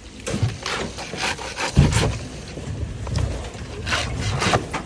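Irregular scraping and rubbing with several knocks, the strongest about two seconds in.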